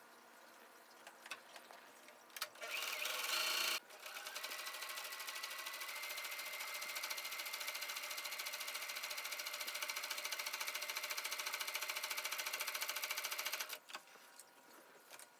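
Electric sewing machine running and stitching steadily for about ten seconds, with rapid, even needle ticks over a faint motor whine, then stopping abruptly. It is preceded, about two and a half seconds in, by a short, louder burst of noise.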